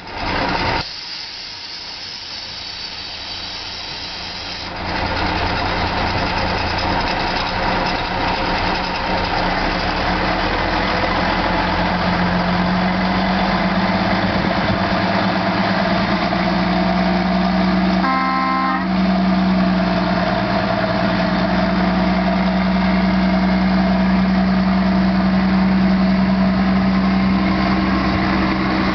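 Narrow-gauge diesel locomotive's engine running and growing louder as it pulls away from the station, with a steady low drone that builds from about twelve seconds in. A short horn blast sounds a little past halfway.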